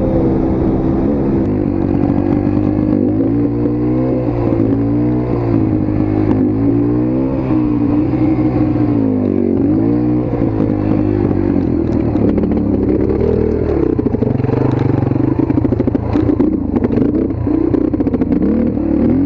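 Motorcycle engine running and being ridden, its pitch rising and falling again and again as the throttle is opened and closed, with some clattering knocks in the later part.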